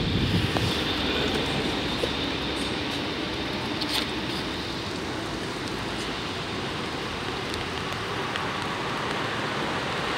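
NS passenger train moving away along the track, its rumble slowly dying down and then holding at a low steady level. A faint high whine is heard at first, and there is one sharp click about four seconds in.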